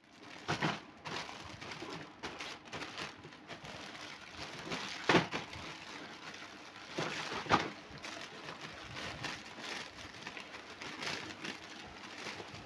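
Clear plastic bag crinkling as hands press and move a packet of miniature plastic toy kitchenware, with three louder sharp crackles, about half a second in, near the middle and a little later.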